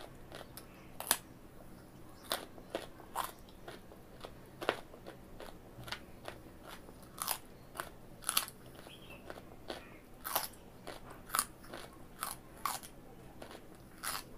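Raw carrot being bitten and chewed: crisp, irregular crunches about once a second.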